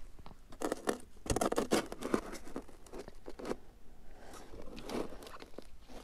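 Crunching and crackling of cold, dry snow in a few irregular bursts, mostly in the first half.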